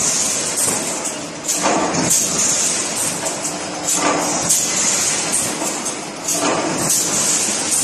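Multi-roller plate levelling machine line running: a steady mechanical hiss over a low hum, with a louder rushing surge about every two and a half seconds.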